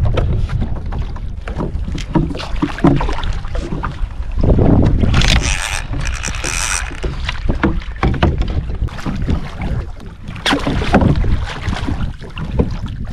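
Wind buffeting the microphone on a fishing kayak at sea, with splashing water and short knocks of gear against the hull. A louder stretch of rushing splashing comes around five to seven seconds in, and a brief splash a few seconds before the end.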